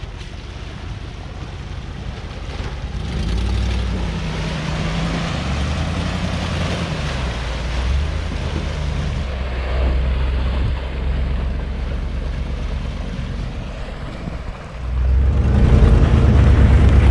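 Land Rover Discovery's engine revving as it pushes through a muddy water hole, with water sloshing and wind on the microphone. About 15 s in the sound jumps louder to a close, steady engine drone.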